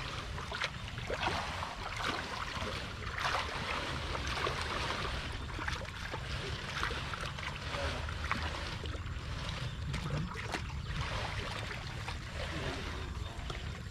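Water splashing and sloshing in a canal, with many short irregular splashes over a steady low hum.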